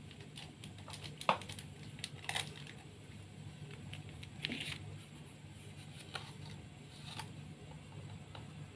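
Kitchen handling noises while cooking: a few sharp clicks and taps, with scattered rustling, over a steady low hum.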